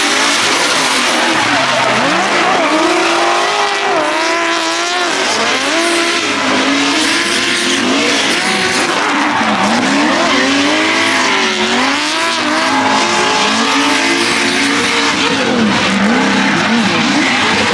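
LS V8-swapped Nissan 240SX (S13) drift car driven hard, the engine note rising and falling over and over as the revs are worked through the drift, over the noise of tyres squealing and sliding.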